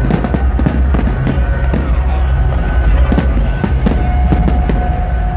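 Aerial firework shells bursting overhead in rapid, irregular cracks, over loud music with a heavy bass.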